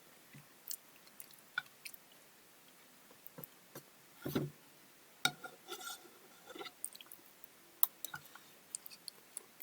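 A person chewing and eating: soft mouth sounds with scattered light clicks, a little louder about four and five seconds in.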